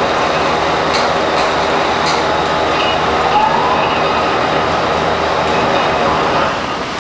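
Horizontal veneer slicer running, its carriage sliding across a clamped wood flitch as it slices a sheet of veneer: a loud, steady mechanical rumble. Three sharp clicks come between about one and two seconds in, and the noise eases a little shortly before the end.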